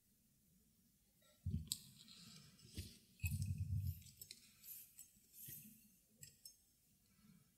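Faint handling noise at a workbench: a run of light clicks, rustles and soft knocks as stitching thread is pulled out across a cutting mat, starting about a second and a half in and dying away near the end.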